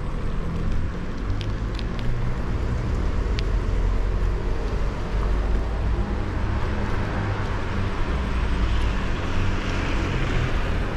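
Steady low rumble of wind on the microphone and wheels rolling over cobbled streets while riding, with a few faint clicks in the first few seconds and a hiss that grows in the second half.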